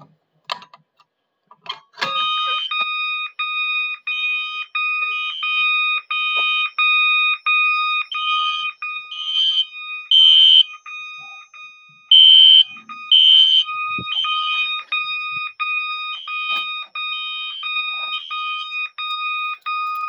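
System Sensor SpectrAlert Classic and MASS fire alarm horn strobes sounding, set off by a pulled FCI MS2L pull station. After a click or two, the loud electronic horn starts about two seconds in and pulses rapidly and evenly.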